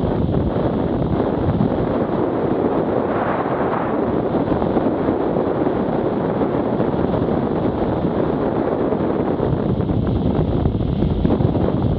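Steady wind rushing over the camera microphone of a moving BMW F800GS motorcycle, mixed with the bike's running and road noise. A stronger gust comes about three seconds in.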